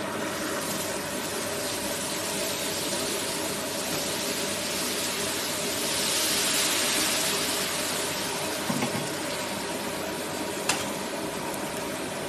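Steady machine hum throughout, with a soft hiss swelling about halfway through as batter is spread across the hot jianbing griddle with a wooden spreader; a sharp click sounds near the end.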